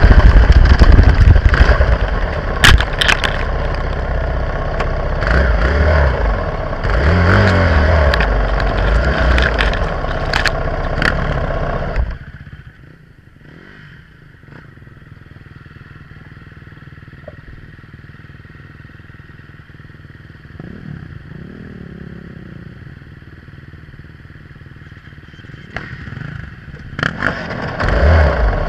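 Dirt bike engine running loud, with grass and brush scraping and clicking against the bike. About twelve seconds in the sound drops off abruptly to a faint steady engine hum, and it turns loud again near the end.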